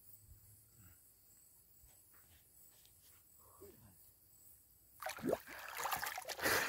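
Water splashing loudly as a masked diver comes up out of the water beside a small boat and grabs its edge. It starts about five seconds in, after a quiet stretch.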